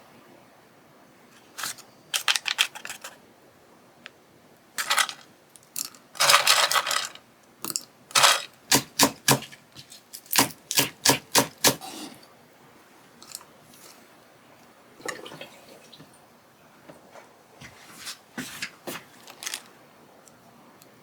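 Kitchen knife striking a cutting board in short runs of quick strokes. The longest run is about ten even cuts at roughly three a second, with a brief rustle just before it.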